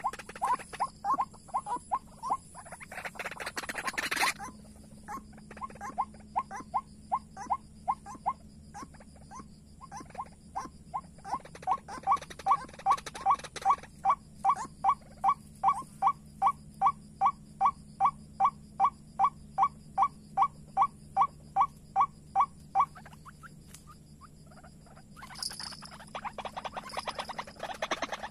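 White-breasted waterhen (ruak-ruak) calling: a long run of short, sharp notes, about three a second. The notes grow louder about twelve seconds in and stop a few seconds before the end. Brief bursts of noise come twice.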